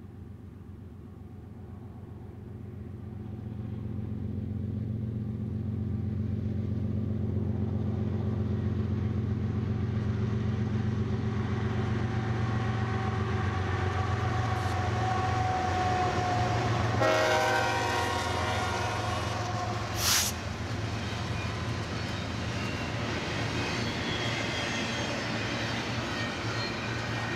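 BNSF diesel freight locomotives approach and pass with a steady low engine drone that builds over the first few seconds, with a brief horn blast about seventeen seconds in. After them the double-stack container cars roll by with steady wheel and rail noise, and a sharp crack sounds about twenty seconds in.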